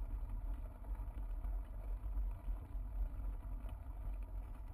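Bicycle rolling over a bumpy grass path, with wind buffeting a handlebar-mounted GoPro Hero 2: a low, uneven rumble.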